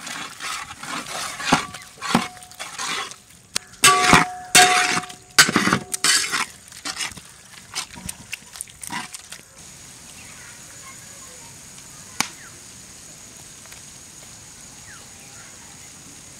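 Metal spatula knocking and scraping in a cooking pot as goat intestine is stirred into fried masala, with some strokes ringing briefly. About ten seconds in the clatter stops and only a steady low hiss remains.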